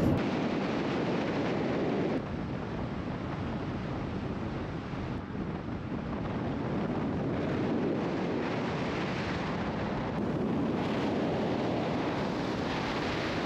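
Steady rushing wind noise on the microphone over the rumble of a car driving, shifting in level abruptly a few times.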